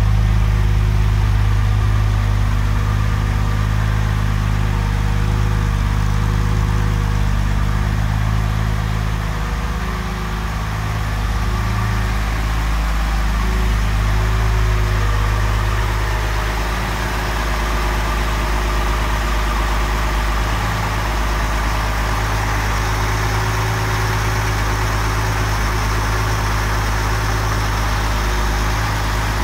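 1967 Mercedes-Benz 230SL's 2.3-litre fuel-injected straight-six idling evenly while it warms up from a cold start, heard first at the twin tailpipes and then over the open engine bay.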